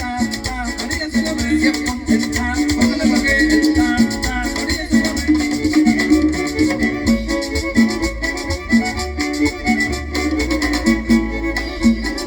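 A chanchona ensemble playing instrumental music live, a violin carrying the melody over a steady, pulsing upright-bass line.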